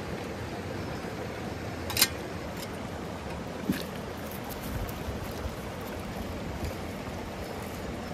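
Steady rush of a shallow river flowing over stones, with one sharp knock about two seconds in and a lighter one a little before four seconds.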